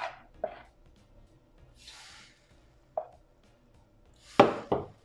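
Metal spoon stirring buckwheat crêpe batter and scraping a plastic bowl, then two sharp knocks of the spoon in quick succession as batter is spooned into a crêpe pan near the end.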